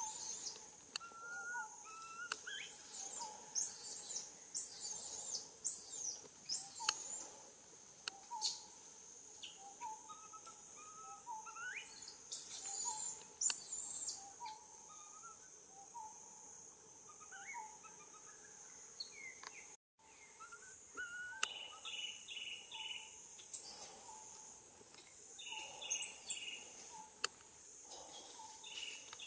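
Birds chirping and calling in short, often rising phrases over a steady high-pitched insect drone.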